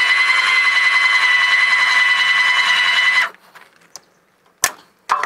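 Ram 3,500-pound electric A-frame trailer tongue jack running under its motor, a steady high whine that cuts off sharply about three seconds in. Two sharp metallic clicks follow near the end as the hitch coupler is handled.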